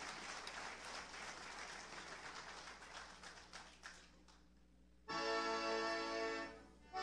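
Audience applause dying away, then the group's band plays a held chord about five seconds in, stopping after about a second and a half, with another chord starting at the end.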